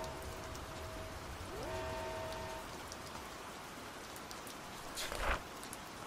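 Steady rain falling, an even hiss with faint held tones underneath. About five seconds in there is one short, sharp crackle.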